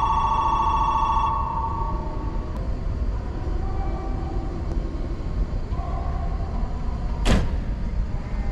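Electronic platform departure buzzer for a Keisei Skyliner, a steady pulsing tone that stops a little over a second in. A few short chime tones follow, then one sharp thud near the end as the train's doors shut, over a steady low rumble of the train standing in the underground station.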